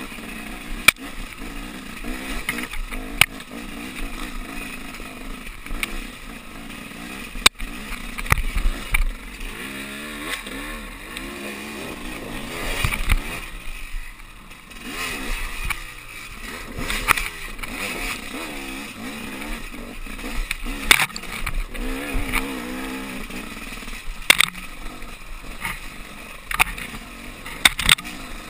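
Off-road dirt bike engine running at low trail speed, its pitch rising and falling with the throttle. Frequent sharp knocks and rattles come through as the bike crosses rocks, and the engine drops off for a moment about halfway through.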